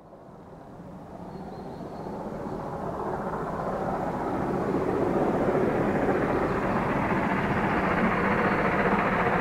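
Steam locomotive 01 2066 working hard up a gradient as it approaches, its exhaust growing steadily from faint to loud.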